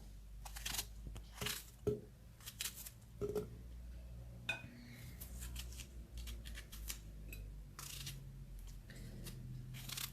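A knife cutting apples into small pieces, making irregular short clicks and taps.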